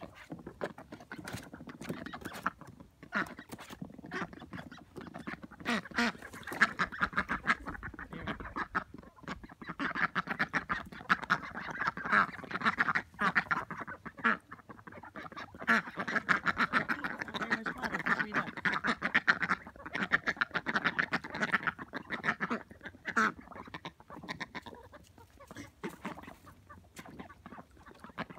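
Several ducks quacking and chattering in a rapid, continuous run of short calls, loudest through the middle stretch.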